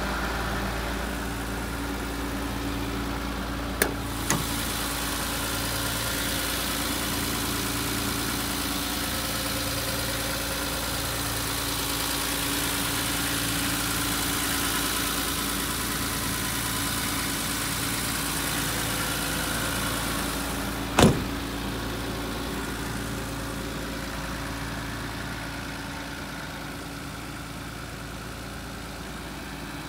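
Nissan Civilian bus's TD42 straight-six diesel engine idling steadily. Two short sharp knocks come about four seconds in, and a louder single knock comes about twenty-one seconds in.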